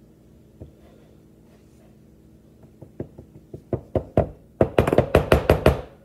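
Cookware knocking hard in the kitchen as the batter in the cake pan is finished off. A single knock comes early, then sparse knocks speed up and grow louder into a rapid run of about six a second that stops just before the end.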